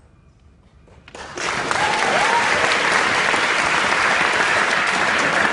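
An audience breaks into applause about a second in, then claps steadily and loudly.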